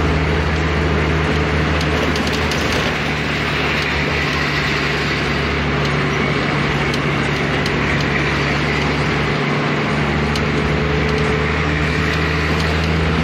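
Steady engine drone and rushing wind and road noise, heard from inside a moving vehicle.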